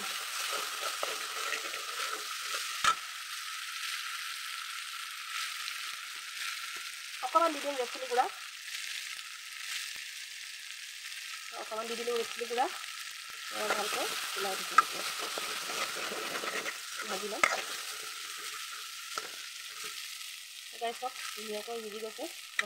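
Onion and ground-spice masala sizzling in hot oil in an aluminium kadai, with a metal spoon stirring it, scraping the pan bottom in short spells and clicking against the metal now and then.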